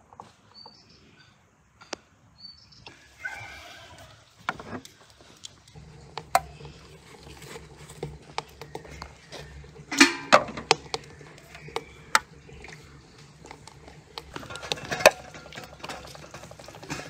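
Glass bottles with metal screw lids clinking and knocking against each other and against the side of an aluminium pot as they are packed into it. The clinks come one at a time, with two louder clusters of ringing clinks about ten and fifteen seconds in.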